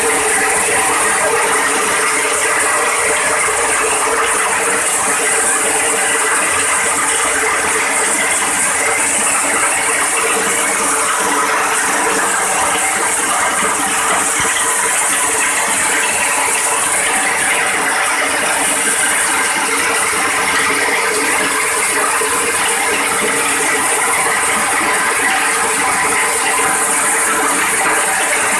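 Steel hammer mill, belt-driven by an electric motor, running steadily while grinding grain into meal: a constant hum under a dense mechanical rattle.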